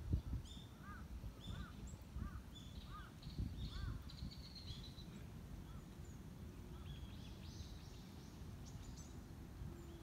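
Birds calling: a run of about six evenly spaced, arched calls, one every half second or so, in the first four seconds. Higher, quicker chirps come throughout and cluster again near the end. Underneath is a low background rumble.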